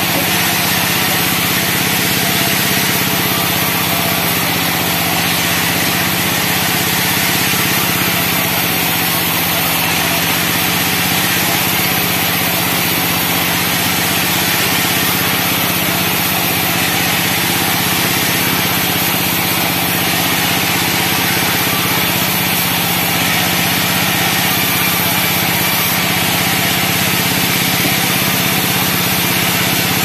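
A band sawmill running steadily and sawing a pine log lengthwise: a continuous loud whir of the saw blade and its drive, with no breaks.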